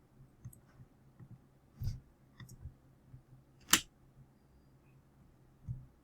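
A few sharp computer mouse clicks, scattered and unevenly spaced, the loudest a little past the middle.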